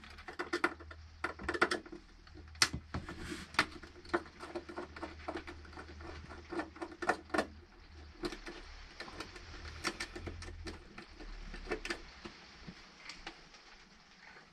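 A small screwdriver and crimped cable lugs clicking and scraping against a plastic 12-volt fuse block as wires are screwed onto its terminals. The sharp clicks and taps come irregularly, in quick clusters.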